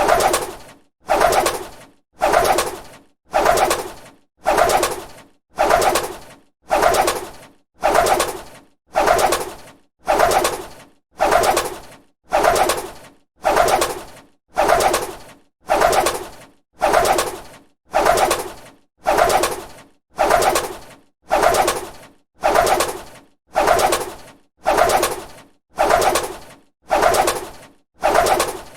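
A bird's wings flapping in a steady repeating pattern, one whooshing burst about once a second, each starting sharply and then fading.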